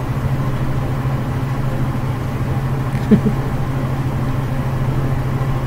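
A steady low hum, with one brief faint gliding sound about three seconds in.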